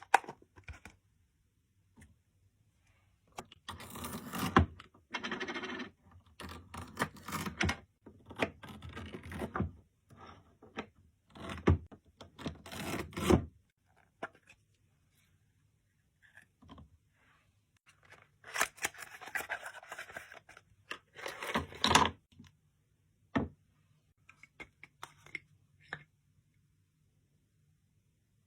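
Close-up handling sounds of miniature cooking: scraping, rubbing and cutting noises in irregular bursts of a second or two, with sharp clicks and taps and quiet pauses between.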